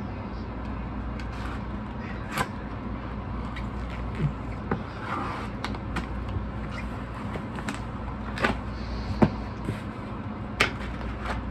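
A white cardboard vinyl-record mailer being opened with a folding knife: the tape is slit and the flaps are pulled back, giving scattered clicks, taps and cardboard scrapes over a steady low hum.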